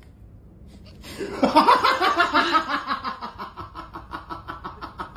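A person laughing hard: a long run of rapid, rhythmic laughs that starts about a second in and slowly fades.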